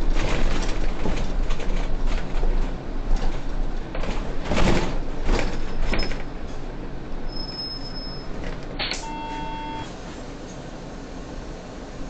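Inside a Solaris city bus at a stop: door and cab noise with several knocks and a short burst of hiss about four and a half seconds in. The noise then drops, and a short electronic beep sounds about nine seconds in.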